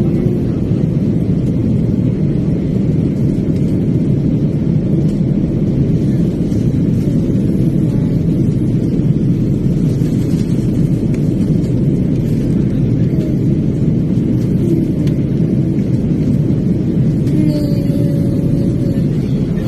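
Airliner cabin noise in flight, the engines and rushing air heard from inside at a window seat: a steady, deep noise.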